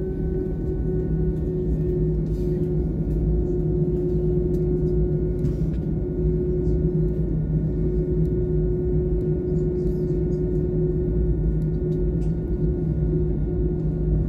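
Airbus A319-115's CFM56 jet engines at low taxi thrust, heard inside the cabin as a steady drone with two held hum tones over a low rumble.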